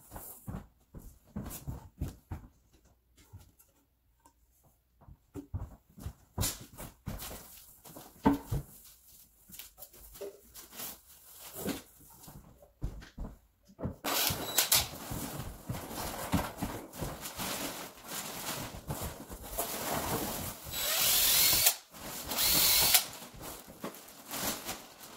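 Scattered knocks and handling of a cardboard box and a cabinet door, then a cordless drill running in several runs over the second half, the loudest two near the end.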